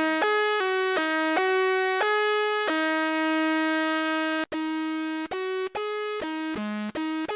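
Infected Sounds Mini-G3 software synthesizer playing a bright lead melody one note at a time, a quick run of short notes with one long held note. About four and a half seconds in it switches to the next lead preset, whose notes are cut more crisply apart.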